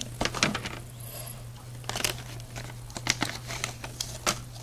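Plastic mystery-pack bag of a Mega Bloks Halo figure crinkling and crackling in the hands as it is worked open, in irregular crackles with a few louder ones.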